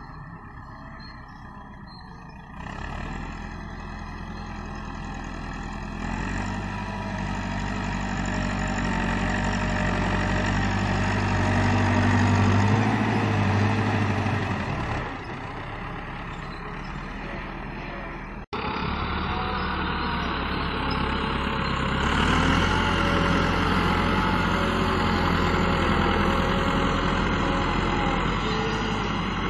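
Massey Ferguson tractor's diesel engine working hard under load as its front blade pushes sand: the revs build up, ease off, and after a sudden break it runs hard again.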